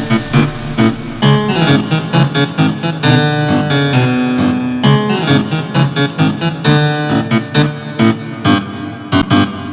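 Upbeat background music led by keyboard or piano, with quick repeated notes over a steady beat.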